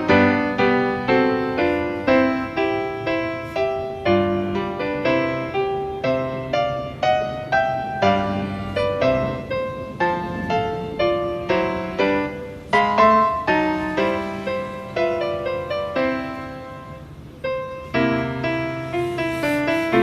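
Background piano music: a steady run of struck notes, quieter for a moment near the end.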